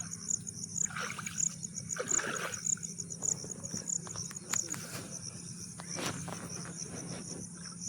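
Insects chirping in a steady high-pitched pulse of about four beats a second, over soft splashing and sloshing of water in a flooded paddy field.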